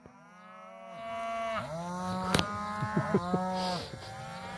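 A mob of cattle mooing, several cows calling over one another from about a second in, with a single sharp click near the middle. The cattle are bawling in protest at being shut into a small enclosure.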